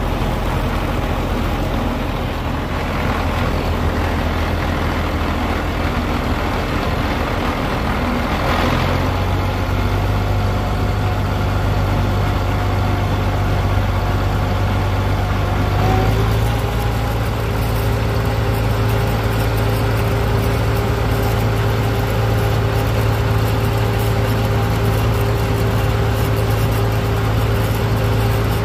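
Vintage farm tractor engine running steadily under way, heard from the driver's seat. Its pitch steps up about a third of the way in and again about halfway through as the engine picks up speed.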